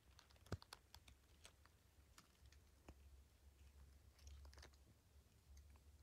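Near silence broken by scattered faint small clicks and ticks, sharpest about half a second in and bunched again around four seconds in, over a faint low rumble.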